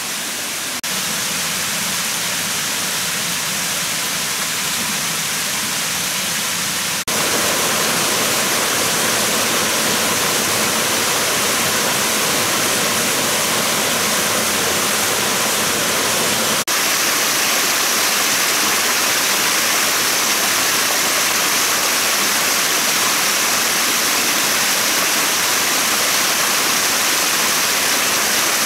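Forest stream rushing over small rock cascades, a steady hiss of water. The water noise jumps a little louder at a few abrupt cuts, about a second in, at about 7 s and at about 17 s.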